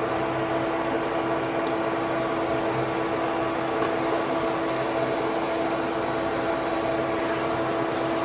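Ground beef and bell pepper sizzling in oil in a nonstick pan as it is stirred with a spatula, over a steady mechanical hum of constant pitch.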